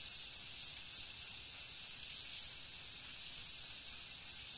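Insects chirping in a steady, evenly pulsing high trill, a continuous wild-insect chorus such as crickets.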